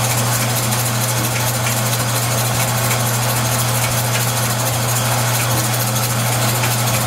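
Jet metal lathe running steadily while turning brass, its drive taken by a makeshift belt of three zip ties run straight between the pulleys: a constant motor hum and whir with a few faint ticks. The belt is holding under the cutting load.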